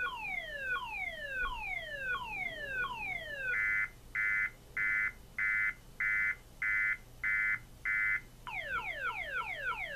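A six-tone car alarm siren (Viper/DEI 516 type) sounding on test and stepping through its tones. First comes a falling sweep repeated about every three-quarters of a second, then eight evenly spaced steady beeps, and after about eight and a half seconds a quicker run of falling chirps, several a second.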